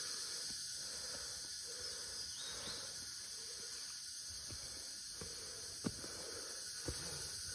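Steady high-pitched drone of forest insects, with a few soft footsteps on a dirt trail, two of them more distinct near the end.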